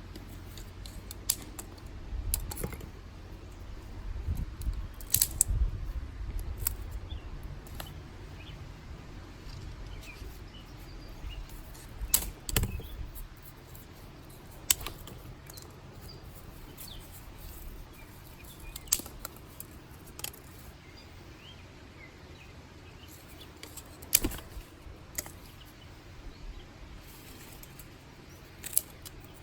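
Dry sticks and twigs snapped by hand, sharp cracks coming singly and in short clusters at irregular intervals, with faint bird chirps in the background.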